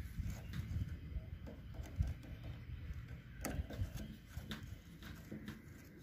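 Screwdriver working a stiff, jammed screw loose on a gas geyser's control-valve housing: faint metal-on-metal scraping and handling noise over a low rumble, with a few sharp clicks scattered through it.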